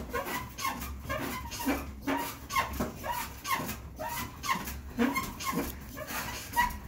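Elliptical trainer squeaking rhythmically in time with the strides, about two squeaks a second, over a low hum.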